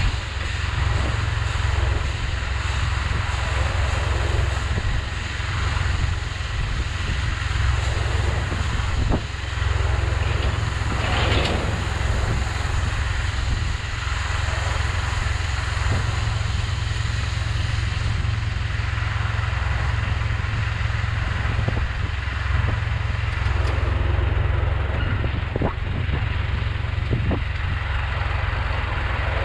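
Large diesel farm machine running steadily: a constant deep drone with an even hiss over it and a few faint knocks.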